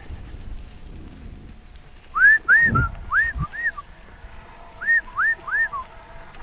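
A person whistling to call a dog: four short whistles that rise and fall in pitch, a pause, then three more. There is a low thump between the first whistles.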